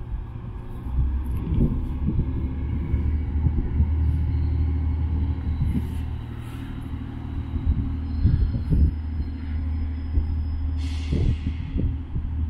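Low, steady rumble of a departing TransPennine Express train's engines as it slowly pulls out of the station, with a short hiss near the end.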